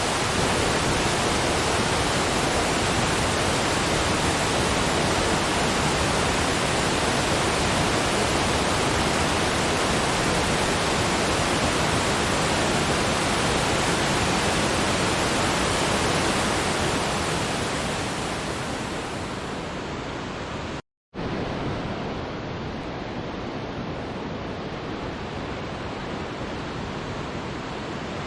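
Waterfall: a steady, dense rush of falling water. About two-thirds of the way through it fades and loses its hiss, then cuts out for a split second and comes back quieter and duller.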